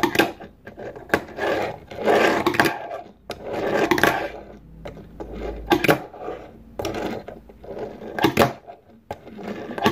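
Fingerboard's small wheels rolling across a hard tabletop, with a rushing sound, broken by sharp clacks as the tail is popped and the board lands during ollie attempts. There are about seven clacks, spread unevenly.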